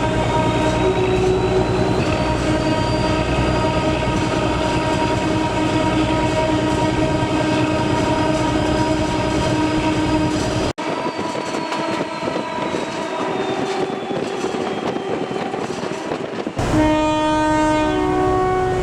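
Trains running past while sounding their horns, in two abrupt edits. The first part holds steady, sustained horn tones over the running of the train. About eleven seconds in it cuts to a quieter passing train. Near the end a two-tone horn sounds a run of short notes that alternate between high and low.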